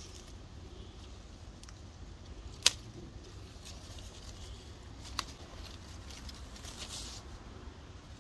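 A hand handling the twigs and leaves of a young apple tree: two sharp clicks, a loud one about two and a half seconds in and a softer one about two and a half seconds later, and faint rustling near the end, over a steady low rumble.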